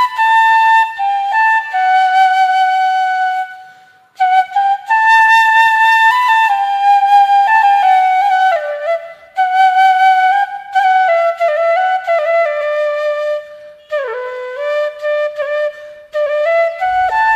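Background music: a solo flute playing a slow, ornamented melody, with a brief pause about four seconds in and a downward slide in pitch near the end.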